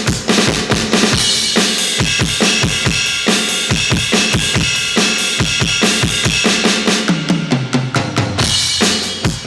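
Aroma TDX15S electronic drum kit played on its "electric kit" preset: a fast beat of kick, snare and cymbals, ending in a tom fill that steps down in pitch near the end.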